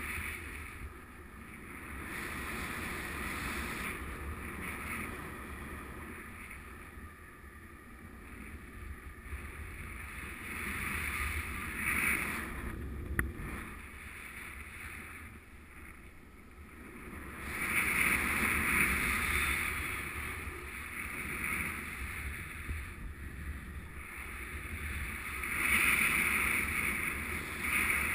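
Airflow rushing over the microphone of a paraglider's riser-mounted camera in flight, swelling and easing every few seconds. A single short click about halfway through.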